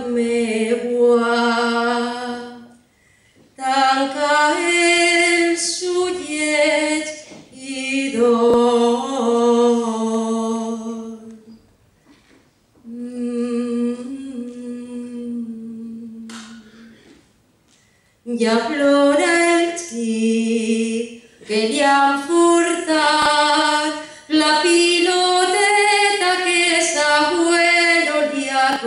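Unaccompanied voices singing a Valencian folk song in short phrases with brief pauses between them; one phrase in the middle is softer.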